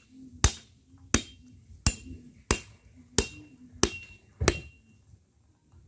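Machete blade knocking against a coconut held in the hand: seven sharp, evenly paced strikes about two-thirds of a second apart, several with a short metallic ring, stopping a little over four and a half seconds in.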